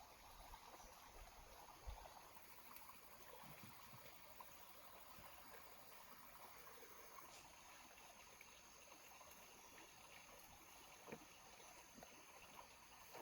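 Near silence: a faint, steady background hiss with a few soft ticks.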